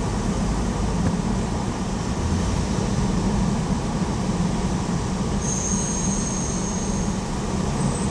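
Steady low rumble of heavy traffic crossing the Queensboro Bridge, with a high metallic squeal for about a second and a half a little past halfway.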